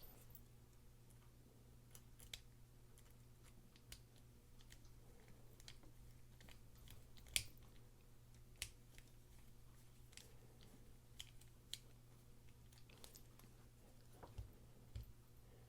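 Faint, scattered small clicks and taps of a folding knife's metal and G10 parts being handled as its pivot screw is put in during reassembly, over a faint steady hum.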